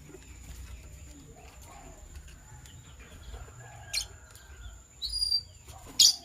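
Lovebirds giving three short, high chirps: one about four seconds in, a slightly longer one about a second later, and the loudest just before the end, over a faint steady high whine.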